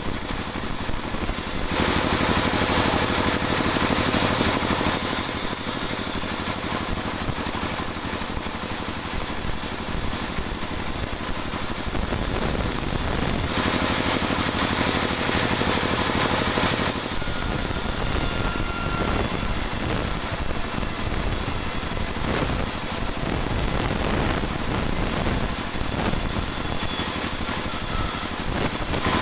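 Band sawmill running, its blade ripping a dry teak offcut into boards over the steady machine hum; the cutting noise changes as a pass starts and ends, about 2, 13 and 17 seconds in.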